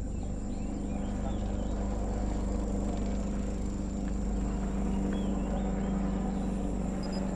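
Steady wind and rolling noise on a helmet-mounted camera during a mountain-bike ride on a dirt track, under a constant low hum and a thin high whine, with a few faint bird chirps.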